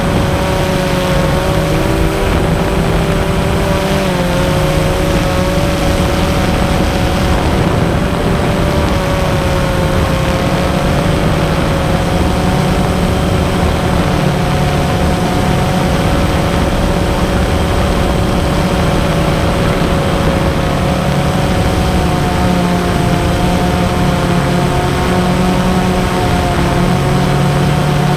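Multirotor drone's motors and propellers whining steadily, the pitch drifting slightly up and down as it flies.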